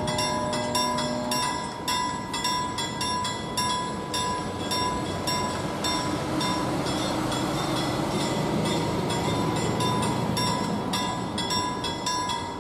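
Level-crossing warning bell ringing in rapid, even strokes, about three a second, signalling that the barriers are coming down for an approaching train. Midway a city bus drives past close by, and its engine and tyre noise briefly swells over the bell.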